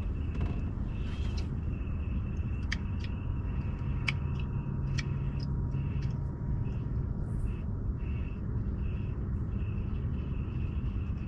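Outdoor night ambience: a steady low rumble under a high, thin trill that keeps breaking off and starting again, typical of night insects, with a few faint ticks around the middle.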